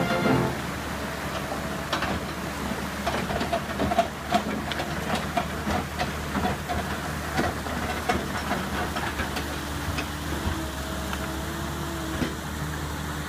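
Excavator's diesel engine running steadily with a low hum, with scattered short clanks and knocks over it.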